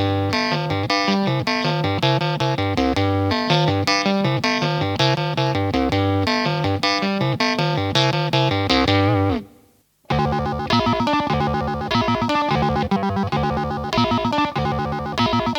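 Fast sequence of pitched notes through a Behringer BM-12 ring modulator, giving a dense, clangorous tone. About nine seconds in, the pitch slides down and the sound cuts out for about half a second, then a new repeating pattern with a different tone comes in.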